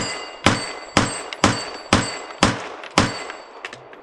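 Glock 45 MOS 9mm pistol firing a string of seven shots about half a second apart, with a faint metallic ring of steel targets being hit after the shots, then a couple of faint clicks near the end.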